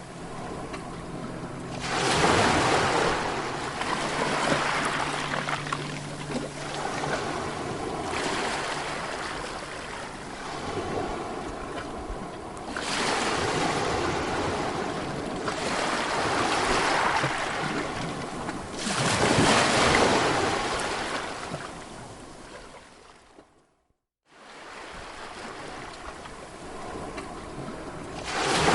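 Ocean surf: waves breaking and washing up a beach, swelling and falling away every few seconds. About 24 s in the sound briefly cuts out to near silence, then the surf resumes.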